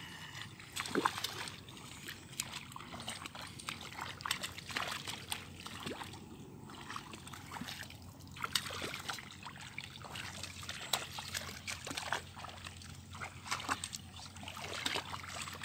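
Water splashing and sloshing as feet wade through shallow, muddy paddy water, a string of small irregular splashes.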